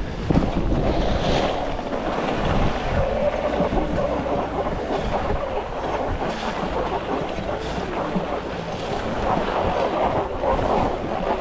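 Edges scraping and hissing over snow while riding downhill at speed, with wind rushing over the microphone.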